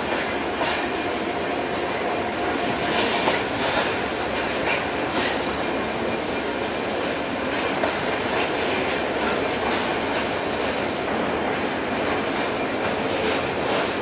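A freight train's hopper wagons rolling past: a steady rumble of steel wheels on rail, with irregular sharp clacks as the wheels cross rail joints.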